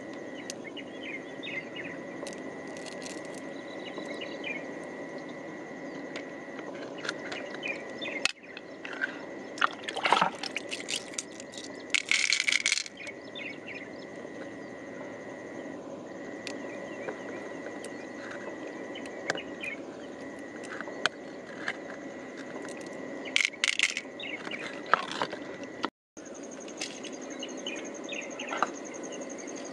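Steady high insect trill over a low outdoor background, with scattered small clicks and a few short rustling, scraping bursts as hands work pearls out of an opened freshwater mussel. The sound drops out for a moment near the end.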